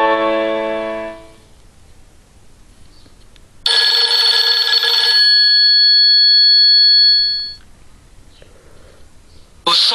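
Nokia 6124 classic mobile phone playing its built-in ringtones. A melody fades out in the first second or so. A single short tone with a sharp start rings on and fades away between about three and a half and seven and a half seconds in. The next melodic ringtone starts just before the end.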